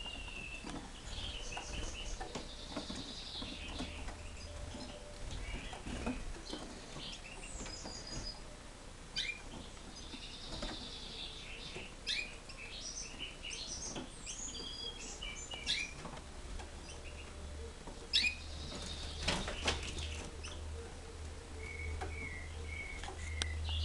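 Caged song thrush singing: a string of varied short whistled phrases, some repeated several times over, with scattered clicks and rustles.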